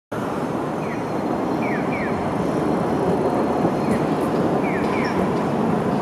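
Toden Arakawa Line 7700-series tram running past on the street line, over steady city traffic noise that grows slightly louder as the tram comes through. Short high chirps, often in pairs, sound several times over it.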